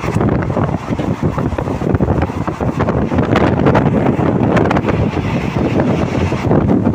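Wind rushing over the microphone at an open carriage window of a moving passenger train, over the train's running noise with frequent short clacks from the wheels and track.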